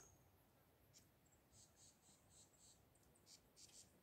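Near silence, with faint high-pitched chirps and ticks coming in short runs.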